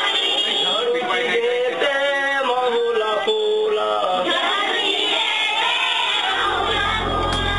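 Voices singing a song together, with held notes that step up and down. A low steady hum comes in about six seconds in.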